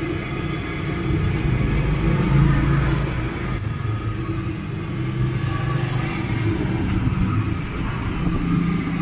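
Passing road traffic: vehicle engines running by in a steady low rumble whose pitch rises and falls as they pass.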